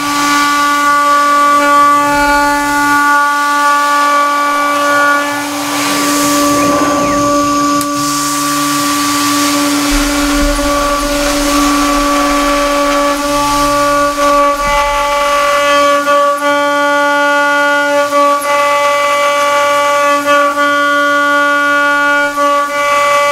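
CNC router spindle running with a steady high whine while a 6 mm single-flute end mill cuts an 8 mm aluminium plate, with a brief hiss about six to eight seconds in.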